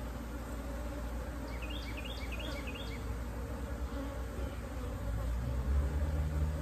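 A honeybee colony buzzing steadily around an opened brood box as a frame full of bees is lifted out; the bees are agitated and defensive. A short run of high chirps sounds about two seconds in, and a low steady hum comes in near the end.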